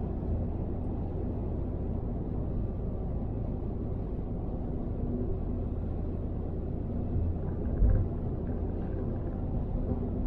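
Steady low rumble of road and tyre noise from a car driving at motorway speed, picked up by a dash camera inside the cabin, with one short thump about eight seconds in.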